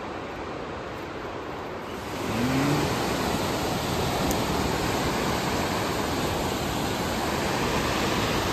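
Steady rushing noise that grows louder about two seconds in, with a brief rising tone just after.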